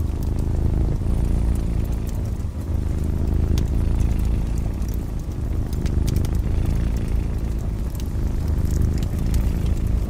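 A cat purring, a low continuous rumble that swells and eases with its breaths every few seconds, with the scattered crackles and snaps of a wood fire over it.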